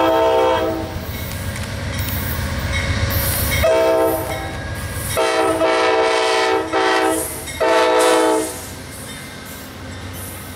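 Amtrak P42DC diesel locomotive's air horn played as a horn show. A short chord blast opens, followed after a pause by a run of blasts, some long and some clipped short, ending about 8.5 seconds in.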